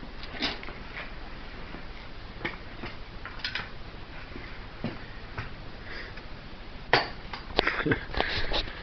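Scattered light clicks and knocks over a low hiss, with a sharper knock about seven seconds in and a quick run of clicks near the end.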